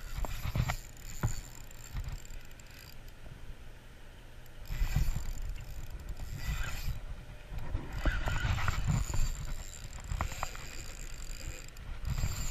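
Spinning reel cranked by hand, its gears whirring as line is wound in, in two stretches of a couple of seconds each, with a few short handling knocks.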